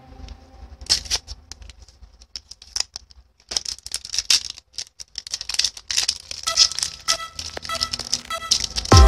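Foil wrapper of a Pokémon trading-card booster pack crinkling and crackling in quick, irregular bursts as it is handled and torn open by hand.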